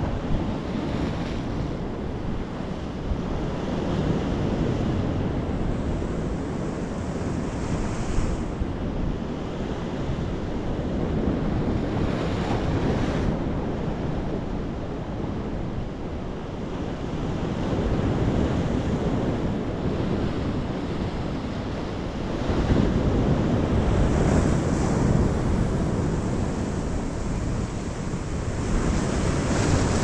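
Sea surf breaking on rocks and washing up a small sandy beach, a continuous wash that swells into a louder surge every four to six seconds.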